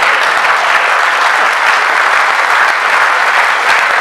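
Audience applauding: many hands clapping steadily and loudly.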